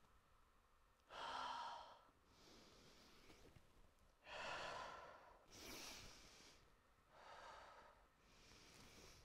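A dancer's faint, deep breaths in and out, about six over nine seconds, each lasting roughly a second. The breaths pace her movement: she moves on the in-breath and pauses on the out-breath.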